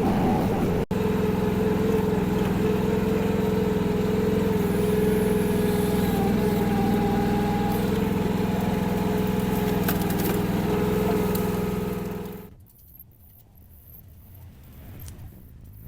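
Kymron mini excavator's 14-horsepower Briggs & Stratton engine running steadily. About twelve seconds in the sound falls away, leaving a much quieter stretch with a few faint clicks.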